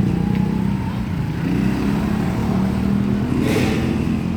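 A motor vehicle's engine running close by, its pitch rising a little midway, with a brief hiss about three and a half seconds in.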